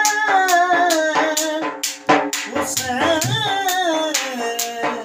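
Dhol beaten with a stick in a steady rhythm of about three strikes a second, under a sung melody of long, gliding notes over a steady held tone.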